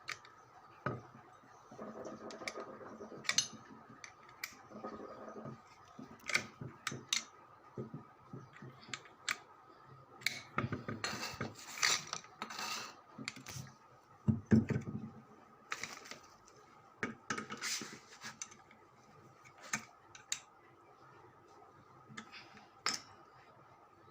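Irregular metallic clinks, taps and knocks of tools and motor parts being handled, with a busier cluster of clatter a little before the middle and a heavier knock a little after it.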